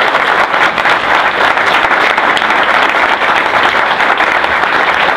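Audience applauding loudly and steadily: the dense clatter of many hands clapping at once.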